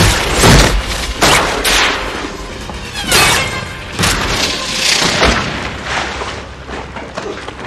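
Film action sound effects of an explosion's aftermath: a run of loud crashes and booms as burning wreckage falls, about seven heavy impacts in the first five seconds, then dying down toward the end.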